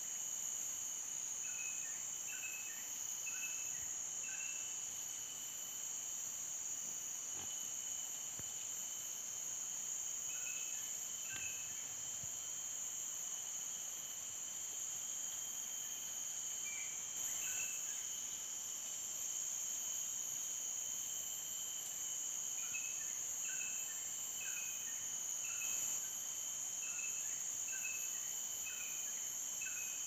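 Steady, high-pitched drone of a tropical forest insect chorus, with short chirping notes repeated in several bouts over it, the longest bout near the end.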